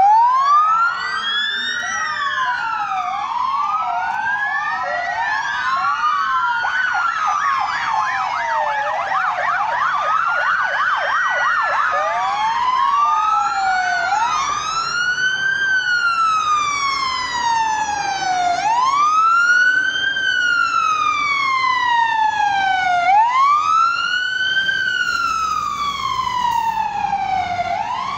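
Sirens of a passing convoy of police cars and fire engines, several wailing at once and overlapping, each wail climbing quickly and sliding slowly back down. A fast yelping siren joins in for several seconds near the middle, and later one slow wail is loudest.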